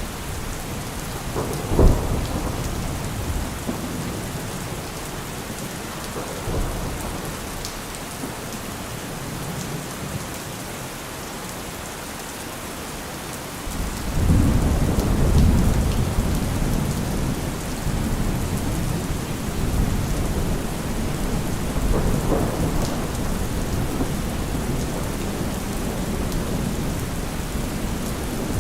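Steady rain hissing, with thunder: a sharp thunderclap about two seconds in, then a long low rumble that sets in suddenly about halfway through and keeps rolling, swelling again a few seconds later.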